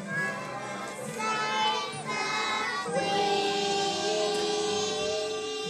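A group of young children singing together, holding one long note through the second half.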